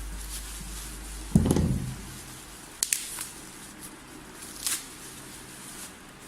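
Handling noises from a product box and its packaging being opened: a thump about one and a half seconds in, two sharp clicks a little later, and a short rustle near the end.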